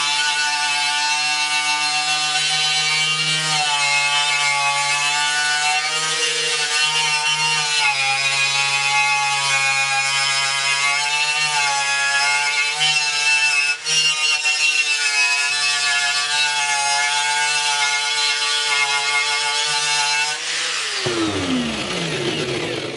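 Electric angle grinder with a wire cup brush running steadily against a 1953 Ford F100 truck grille, stripping it down to bare metal to check for rust, its pitch wavering slightly as the brush is pressed on. Near the end it is switched off and winds down in a falling whine.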